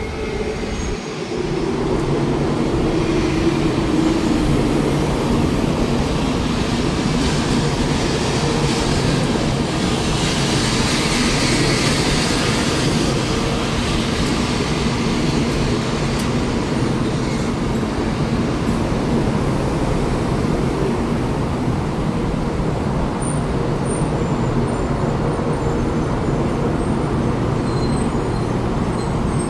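Taiwan High Speed Rail train pulling into a station: a steady rumble and rush of the passing train that swells about a second in and holds loud, with a hiss strongest around the middle.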